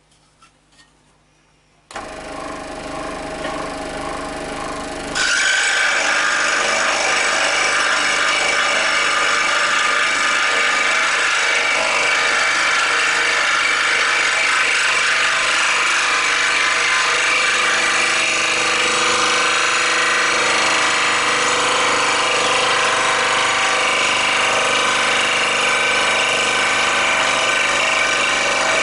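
Record Power SS16V variable-speed scroll saw switched on about two seconds in, running free for a few seconds. From about five seconds in its reciprocating blade is cutting a curved line through a piece of wood, louder and steady.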